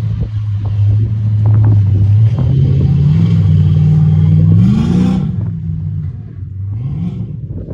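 A motor vehicle engine running close by, its low tone rising in pitch in steps as it accelerates, then dropping away and fading near the end.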